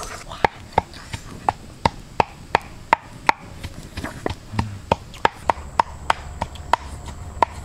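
Steady rhythmic pounding of a pestle in a mortar: sharp knocks, about three a second, each with a short ringing tone.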